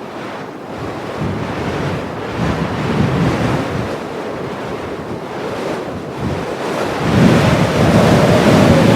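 Heavy blizzard wind blowing in rising and falling gusts, swelling into a stronger gust about seven seconds in.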